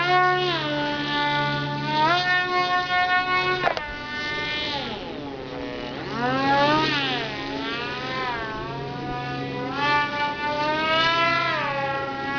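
Small electric motor and propeller of a foam RC F-22 model plane, whining in flight. The pitch climbs, holds, then sweeps down and up again several times, with a dip about five seconds in and a rise near the end.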